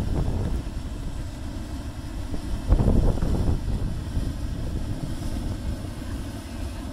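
Lone Star Geyser, a cone geyser, erupting: a steady rush of water and steam jetting from its cone, with wind buffeting the microphone in gusts, the strongest about three seconds in.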